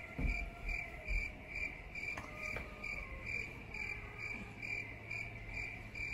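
Cricket chirping: a steady high chirp repeated evenly about three times a second, which stops abruptly at the end. Two soft low thumps come in the first second or so.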